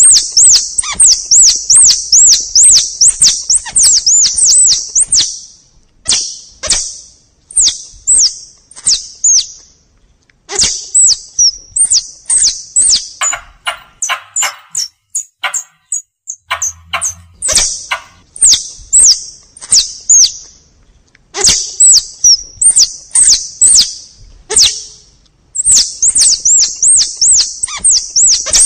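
Forest squirrel (tupai) calls played as a hunting lure: trains of sharp, high chirps, several a second, in bursts with short pauses between.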